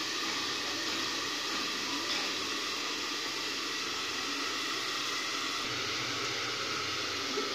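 Steady, even hiss of bottle gourd cooking under a glass lid in a steel kadhai over a lit gas burner.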